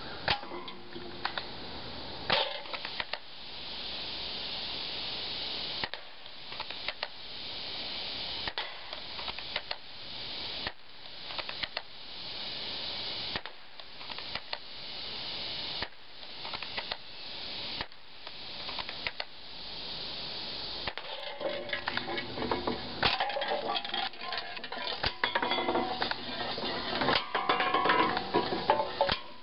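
Scattered sharp clicks and light metallic clinks over a steady hiss, growing busier with short ringing clinks in the last third.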